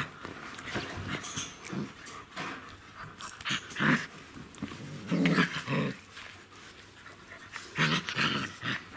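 Czechoslovakian wolfdog puppies growling in short bursts, a few seconds apart.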